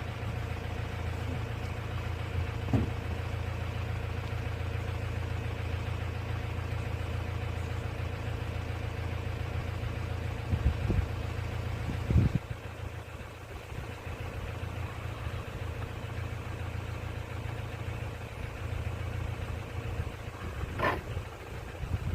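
A vehicle engine idling with a steady low hum, with a few brief knocks; the hum drops a little about twelve seconds in.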